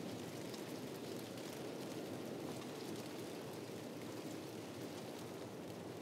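Steady wind blowing, an even rushing noise, with faint scattered clicks and crackles throughout.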